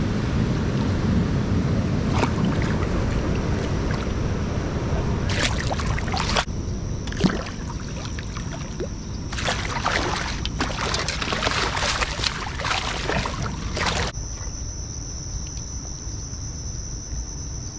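A hooked channel catfish splashing and thrashing at the water's surface as it is fought in and landed: a burst about five seconds in, then several seconds of splashing from about nine seconds in. Crickets chirp in a steady high trill behind it.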